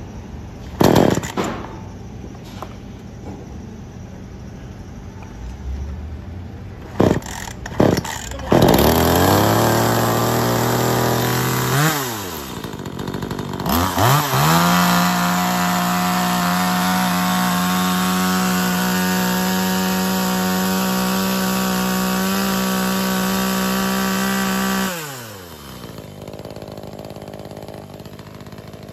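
HiKOKI CS33EDP two-stroke chainsaw engine started by hand: a few sharp pulls on the starter, then it catches about nine seconds in and runs unevenly, dips, and revs up. It then holds steady at high revs for about ten seconds before being shut off and winding down near the end.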